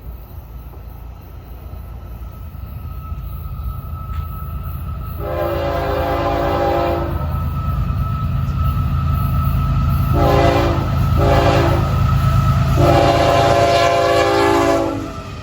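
Florida East Coast freight locomotive sounding its horn as the train approaches: a long blast, two short blasts, then a long blast. Under the horn the diesel locomotives' rumble grows louder as the train draws near.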